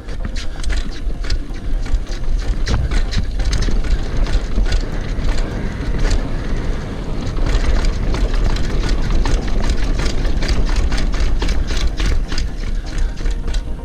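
Full-suspension mountain bike ridden over rough ground: a constant low rumble of wind and tyres on the microphone, with the bike rattling in frequent sharp clicks over the bumps.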